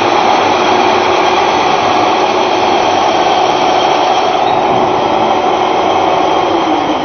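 Multi-spindle drilling machine with twelve spindles running: a loud, steady mechanical whirr with a few constant tones in it. One tone sags slightly near the end.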